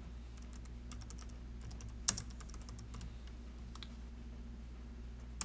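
Typing on a computer keyboard: irregular runs of quick key clicks, with one louder keystroke about two seconds in, over a faint steady hum.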